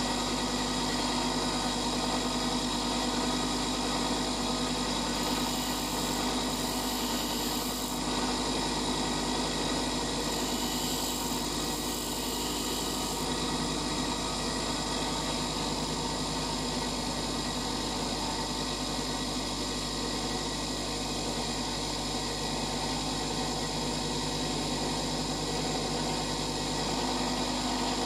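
Bench grinder with a white grinding wheel running steadily: an even motor hum with a constant hiss over it, while a twist drill bit is sharpened on the wheel.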